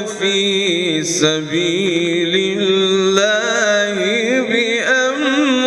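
A man reciting the Quran in melodic tajweed style, holding a long sung note with wavering ornaments that rise and fall in pitch.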